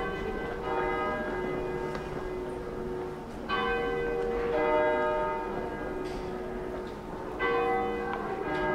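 Church bells ringing, strokes falling in pairs about a second apart, roughly every four seconds, each stroke ringing on.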